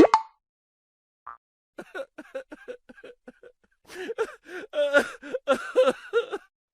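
Laughter sound effect: a voice laughing in quick short bursts, first a fading run and then a louder run of about a dozen.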